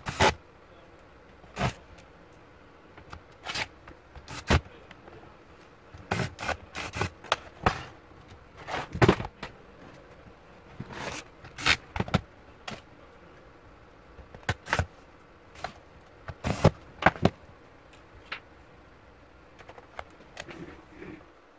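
Irregular sharp clicks and knocks as a laptop's plastic case parts and a screwdriver are handled and set down on a workbench during reassembly, with no motor running.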